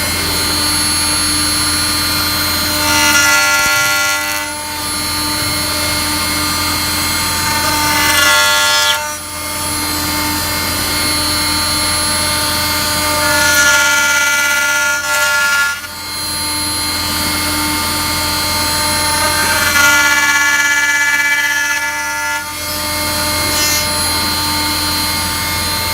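Rye MG2400 CNC router cutting wood with a TCT cutter: a steady spindle whine with several fixed tones, and four times the cut changes, with a louder, differently pitched passage lasting a second or two.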